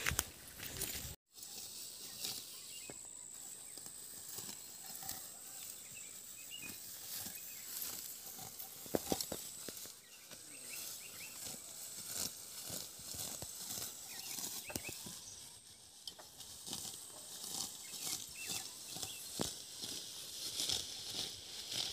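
Green grass being cut by hand: rustling of stalks and many small crisp snips and snaps as handfuls are gathered and cut, fairly faint.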